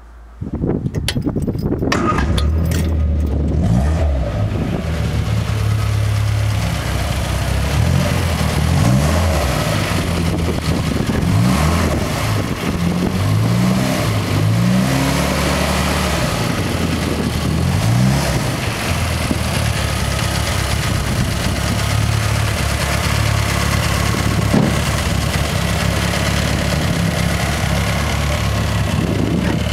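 A 1965 MG Midget's BMC A-series four-cylinder engine, on twin SU carburettors, starts up within the first second. It is then blipped in a series of short revs that rise and fall over the next several seconds, and settles into a steady idle for the second half.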